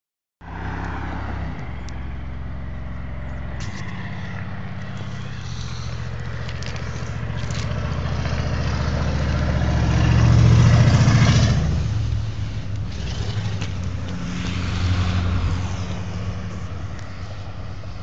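Diesel locomotive engines of an approaching CSX freight train, a steady low drone that steps in pitch a couple of times and swells to its loudest about ten seconds in before easing off.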